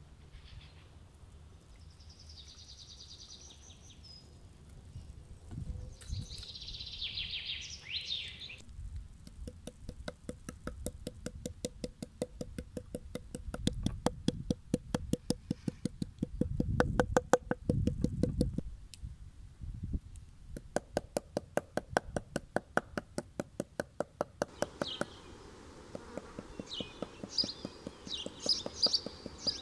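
Quick, even knocking of a plastic meat tenderizer pounding a slice of raw meat on a wooden cutting board, kept up for some fifteen seconds. Near the end it stops and birds chirp.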